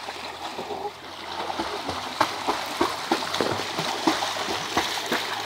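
A child's legs kicking and splashing in a swimming pool while she swims holding a kickboard. Quick, uneven splashes come thick and fast, building up after about a second.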